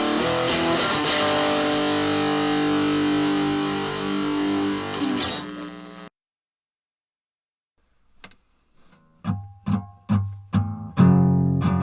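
Guitar-led music with distortion holds sustained chords, fades and cuts off about six seconds in. After about two seconds of silence a new song starts with separate plucked guitar notes that build into strumming.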